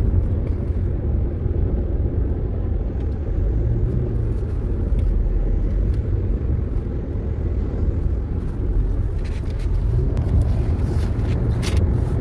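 Steady low road and engine rumble of a car cruising on a freeway, heard from inside the cabin.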